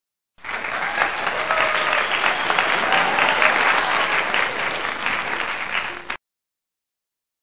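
Applause, many hands clapping densely, starting suddenly and cutting off abruptly after about six seconds.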